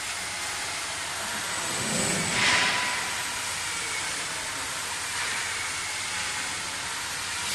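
CNC glass cutting machine running: a steady hiss with faint high whine tones, swelling to a louder rush of hiss for about half a second, about two and a half seconds in.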